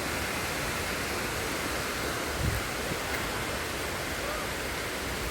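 Steady rushing of a waterfall, an even hiss of falling water that holds level throughout.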